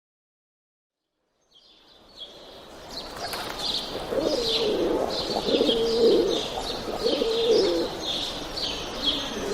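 Pigeons cooing, a few low rolling coo phrases in the middle, under small birds chirping again and again. The sound fades in after about a second and a half of silence.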